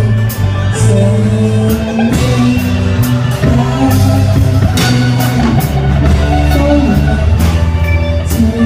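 Live rock band playing: electric guitar over steady low bass notes, with a drum kit keeping time and cymbal crashes through it.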